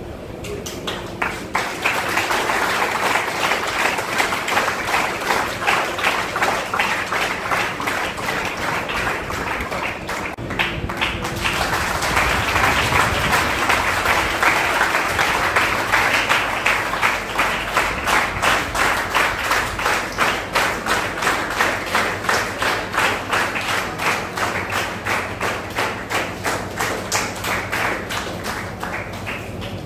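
Audience applauding, a dense patter of many hands, with a short lull about ten seconds in; near the end the claps thin out into a more even, separate beat.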